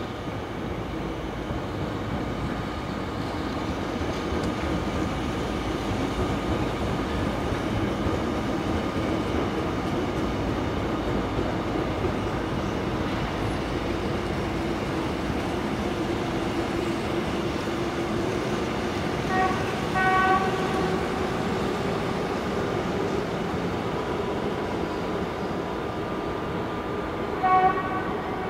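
Train passing on the tracks: a steady rumble of wheels on rail. A train horn sounds twice, a short blast about two-thirds of the way through and another near the end.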